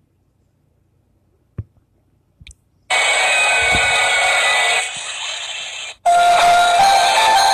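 Near silence with a single click, then loud music full of held tones starts abruptly about three seconds in. It dips about five seconds in and comes back louder about six seconds in.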